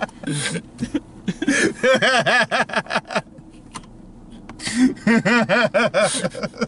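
Two men laughing hard in rapid bursts. The laughter dies down briefly about halfway through, then breaks out again.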